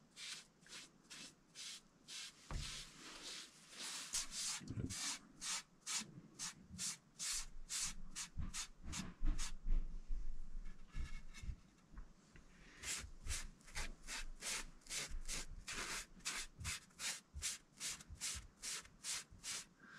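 Foam brush stroking tung oil along a wooden hiking stick: soft rubbing strokes about twice a second, with a short pause about halfway through.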